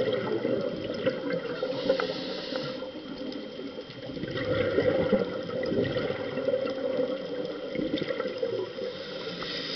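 A scuba diver's regulator breathing, recorded underwater: bubbling and crackling, a short hiss on the inhale about two seconds in, then a louder rush of exhaled bubbles from about four seconds in.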